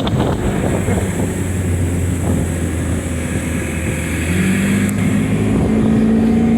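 Evinrude 85 V4 two-stroke outboard motor running on a boat under way, with wind rushing over the microphone. About four seconds in the engine note picks up slightly.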